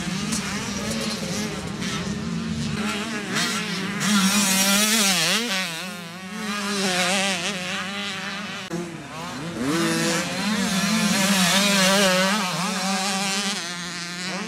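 Several youth dirt bikes riding a motocross track, their engines revving and shifting so the pitch climbs and drops again and again, over a steady lower engine drone. The bikes get loudest twice, once about four seconds in and again in the last third.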